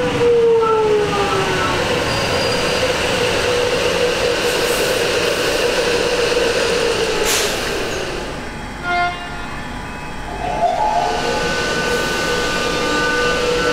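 Melbourne X'trapolis 100 electric train at the platform, its traction motors whining over the wheel and rail noise, which eases off about eight seconds in. A short tone sounds near the middle, then steady motor tones return, starting to rise in pitch near the end.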